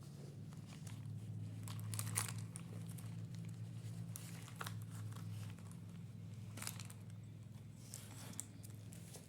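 Crinkling and rustling of handled material, with scattered short crackles, over a steady low hum.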